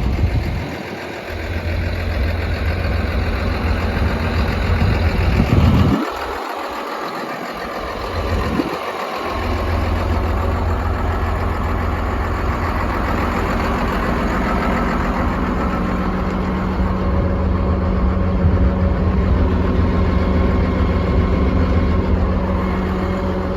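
Komatsu D41P-6 bulldozer's diesel engine, recently replaced, idling steadily, with a low rumble that drops out for a few seconds about six seconds in.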